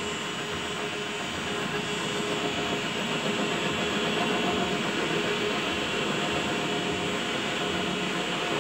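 WM210V benchtop metal lathe running under power while the tool, hand-fed on the compound slide, cuts a cone on a hardened steel stud. A steady whine with the noise of the cut, which grows a little louder about two seconds in.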